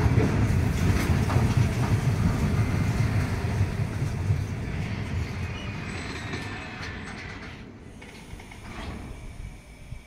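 Empty two-deck car-carrier wagons of a freight train rolling past on the rails: a steady rumble of wheels on track with occasional clicks. It grows fainter over the second half as the train moves away.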